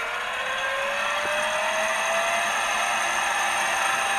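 Electric starter motor cranking the rotor of a Williams WR27-1 turbine APU, a whine that rises steadily in pitch and levels off. It is a soft start at 24 V through a resistor bank, before the contactor is closed for full power.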